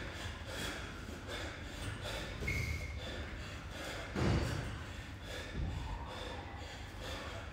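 Heavy breathing of a man doing strict pull-ups in a weight vest, with one strong forceful exhale about four seconds in and a smaller one shortly after.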